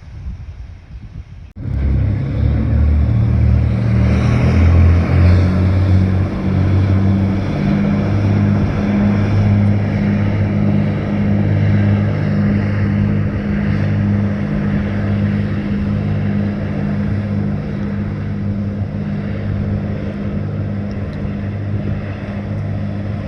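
A vehicle engine running steadily with a low hum, starting abruptly about a second and a half in.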